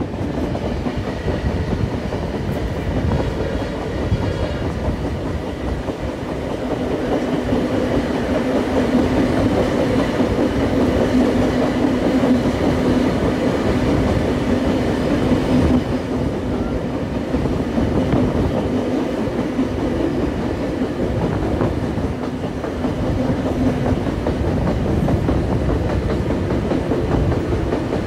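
Heritage passenger train running along the track, heard from an open carriage window: the wheels click over the rail joints under a steady rumble. A low steady drone runs through the middle stretch and fades out near the end.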